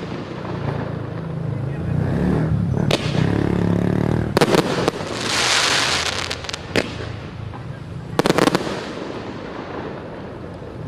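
Fireworks going off: sharp bangs about three seconds in, a quick pair near four and a half seconds, another near seven and a cluster around eight seconds, with a hissing crackle between them.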